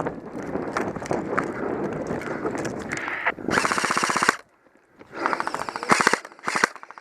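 Airsoft gun firing rapid full-auto bursts: one burst of just under a second, then several shorter bursts. Rustling movement noise comes before the firing.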